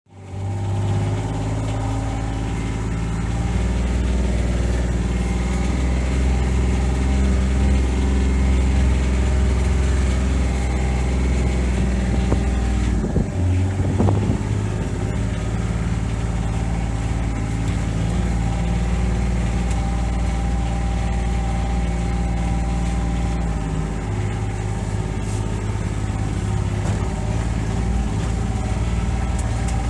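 Vehicle engine running steadily, heard from inside the cab while driving along a rough off-road track. A few knocks come about halfway through.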